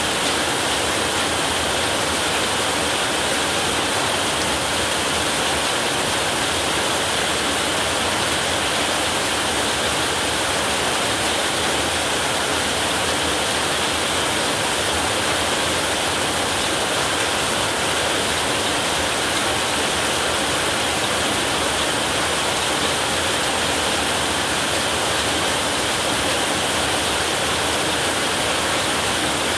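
Heavy rain falling steadily on a roof, an even hiss and patter with no breaks and no thunder.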